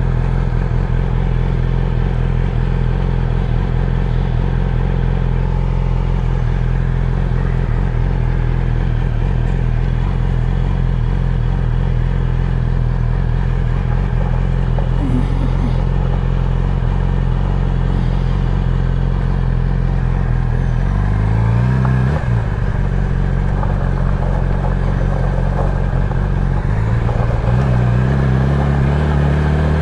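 Motorcycle engine running steadily, its pitch rising about two-thirds of the way in and again near the end as it revs up.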